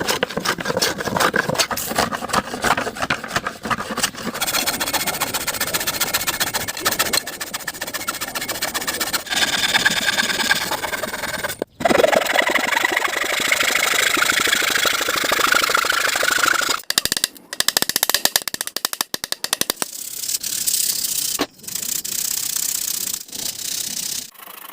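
Power tools working wood: a dense, scraping mechanical noise full of rapid clicks, in several short stretches that break off abruptly.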